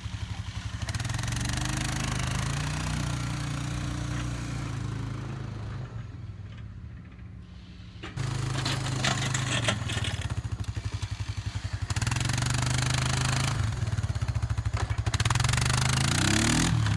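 Engine of a snowplowing vehicle running, with a steady hiss over it. It eases off for a few seconds in the middle, picks up again, and revs up near the end.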